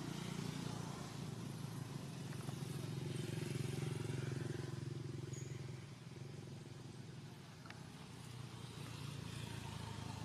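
Motor vehicle engine running, a steady low hum that fades about six seconds in and rises again near the end.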